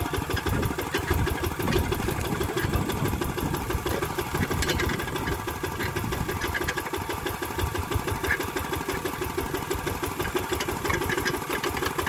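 Single-cylinder diesel engine of a Kubota NC-series two-wheel walking tractor idling steadily.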